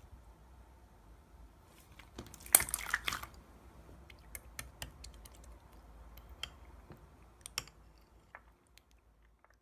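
Clear slime being squished and pressed by hand: scattered sticky clicks and pops, with a louder run of crackling about two and a half seconds in.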